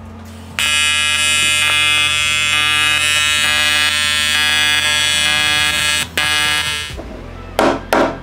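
TIG welding arc buzzing steadily while aluminum tabs are welded, starting about half a second in, breaking briefly about six seconds in and stopping about a second later. Two sharp hammer knocks follow near the end.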